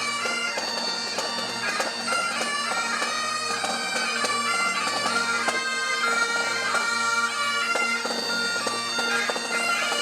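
Great Highland bagpipes of a pipe band playing a tune over their steady, unbroken drones.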